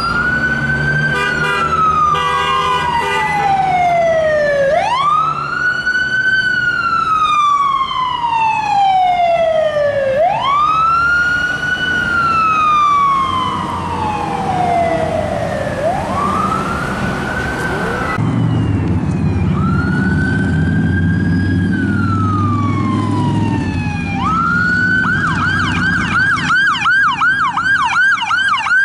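Emergency vehicle's electronic siren on a slow wail, each cycle rising quickly and falling slowly over about five seconds, with engine and road rumble underneath. The wail breaks off about two-thirds of the way through and starts again, then switches to a fast yelp of about four cycles a second near the end.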